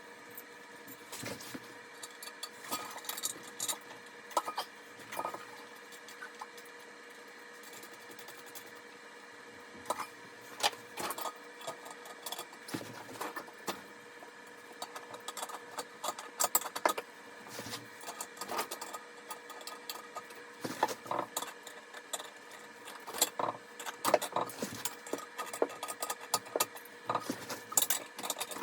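Irregular metal clicks and clinks of tools tightening the toilet tank's mounting bolts onto the bowl, coming more often in the second half, over a faint steady hum.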